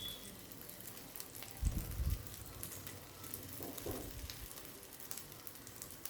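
Chicken omelette frying in oil in a pan, a steady sizzle, with a couple of soft knocks, the first about two seconds in.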